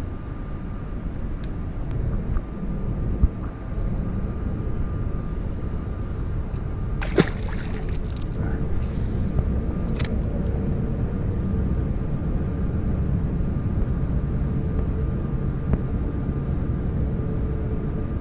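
Steady low rumble of wind buffeting the microphone, with a few sharp clicks from handling a fishing rod and reel.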